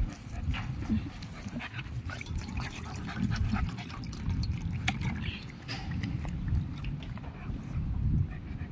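A dog lapping water, an irregular run of short wet clicks and splashes.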